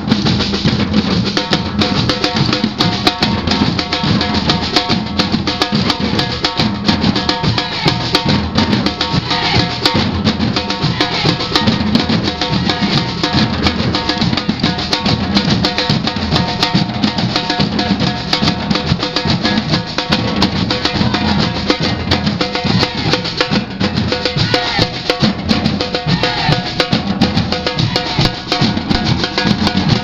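Samba band drumming: many players striking large metal-shelled samba drums with sticks in a dense, driving rhythm that continues without a break.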